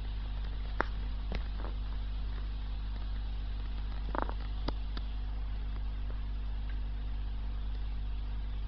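Steady low hum of aquarium equipment with a hiss over it, broken by a few short clicks about a second in and again around four to five seconds in.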